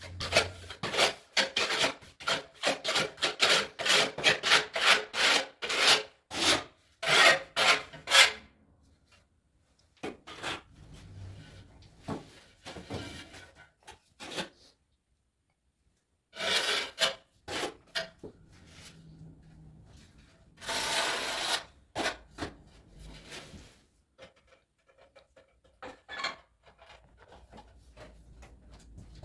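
Trowel scraping tile adhesive across the back of a tile in quick repeated strokes, about two a second, spreading and combing the adhesive before the tile is set. The strokes stop about eight seconds in, followed later by a few separate scrapes and quieter handling.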